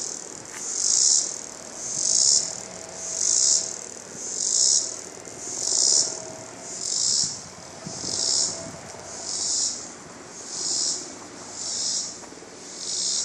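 An insect calling from the trees: a fast, high-pitched clicking rasp that swells and fades in regular pulses, about one every second and a bit. The caller is unidentified and sounds very strange.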